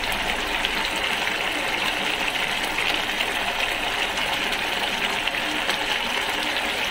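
Canned-mackerel and sotanghon broth simmering in a frying pan, a steady bubbling hiss with fine crackles.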